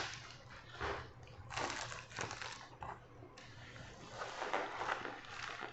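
Packaging being handled and opened during an unboxing: faint rustling and crinkling of wrapping and box material in several short spells.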